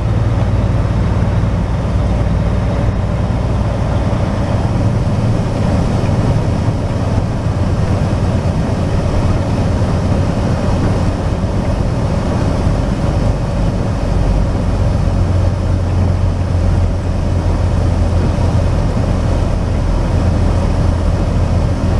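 Steady in-cab drone of a semi truck cruising at highway speed: engine hum with tyre and road noise, heard inside the cab.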